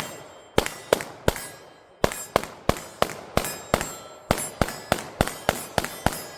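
Rapid pistol fire of about sixteen shots at roughly three a second, in three quick strings with brief pauses between them. Each shot carries a ringing clang, as of bullets striking steel targets.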